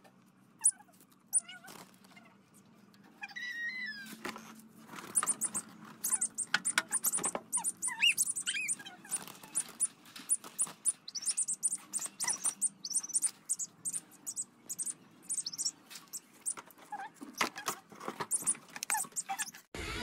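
Cockatiels in a small wire cage giving short, repeated squawks and chirps as hands reach in to catch them, with clicks and rattles from the cage wire. The calls start a few seconds in.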